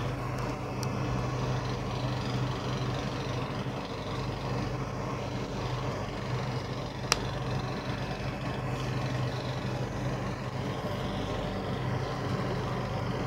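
Steady low hum with an even background noise, and a single sharp click about seven seconds in.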